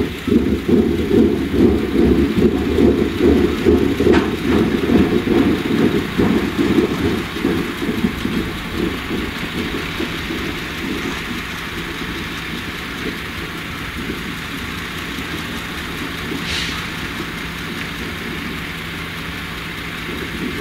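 Heavy diesel machinery running as a sugar beet cleaner-loader works loading beets onto a lorry. A rough, uneven rumble fills the first several seconds, then settles to a steady drone.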